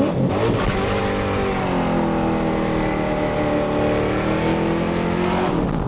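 Commodore's LS1 V8 held at high revs under load, heard from inside the cabin; the pitch climbs at the start, sags a little and rises again, then falls away near the end as the throttle comes off.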